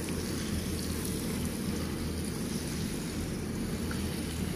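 Water from a shower-head sprayer falling in a steady shower onto cocopeat-filled seedling trays, soaking the cocopeat through before sowing, with a steady low rumble underneath.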